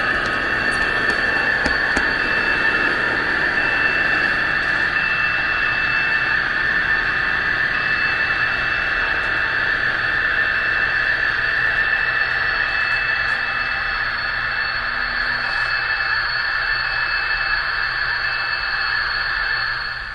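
Märklin mSD3 sound decoder in a BR 218 model locomotive playing the diesel engine running sound through the model's small speaker, a steady, tinny, noisy drone. It gets a little quieter near the end.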